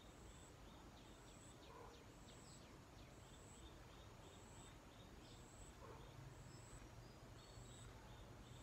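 Faint rural background: evenly repeated very high chirps about once a second, runs of quick high chirps, and a few faint bird calls.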